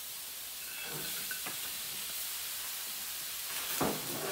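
Steady sizzle of mushrooms, corn and frozen carrots frying in an oiled skillet over a gas flame, with a couple of light knocks from the carrots being tipped in and stirred.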